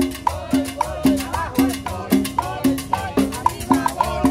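Live salsa band playing, led by a repeating conga drum pattern of pitched low strokes about twice a second, with sharper high percussion knocks and a melody line over it.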